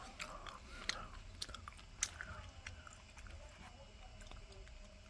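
Close-up chewing of crunchy breaded fried pork cutlet (tonkatsu), with a few sharp crackling crunches in the first two seconds, then quieter chewing.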